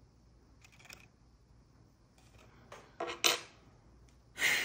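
Small sharp plastic clicks and snaps as a pry tool pops the MacBook Pro spacebar's plastic retainer clips free, the loudest just after three seconds in. A louder rushing noise starts near the end.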